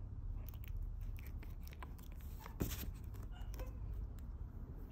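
Soft scattered clicks and rustles of a puppy shifting in a wicker basket and being handled, with one sharper click about two and a half seconds in, over a low steady hum.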